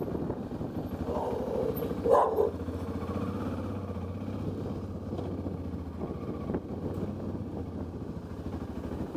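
Motorcycle engine running steadily at low speed, with a brief louder burst about two seconds in.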